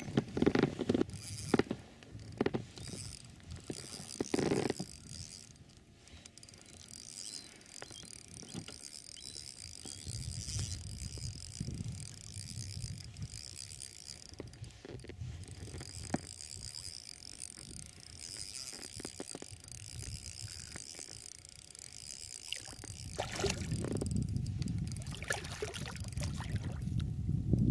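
Spinning fishing reel cranked steadily, winding in a hooked pike, with a few knocks near the start. Water splashing builds near the end as the fish thrashes at the surface beside the boat.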